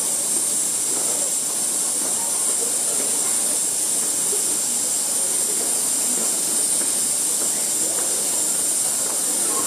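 Railway station ambience: a steady high hiss over a low, indistinct rumble, as an ITX-Cheongchun electric train moves slowly through the tracks some distance off.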